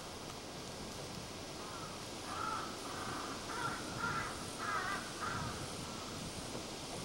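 Crows cawing: a run of about six short, harsh caws starting a little over two seconds in and stopping about five and a half seconds in.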